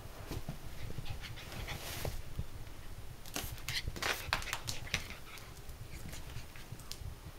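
Miniature dachshund panting as it runs about, with a quick scatter of sharp clicks around the middle, its claws on the wooden floor.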